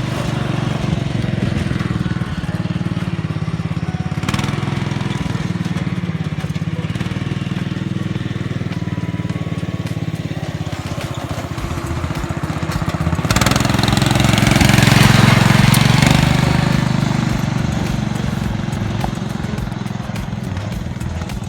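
Riding lawn mower's small engine running steadily as the mower is driven. A louder rush of engine and noise swells for a few seconds just past the middle, then eases back.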